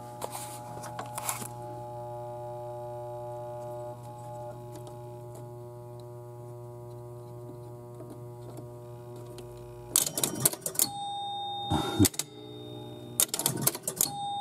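1973 Gottlieb Home Run electromechanical pinball machine humming steadily while powered on. About ten seconds in, its relays and stepper units clatter in several quick bursts and its scoring chimes ring, a sign that the game is registering points, which the repairman blames on a stuck switch.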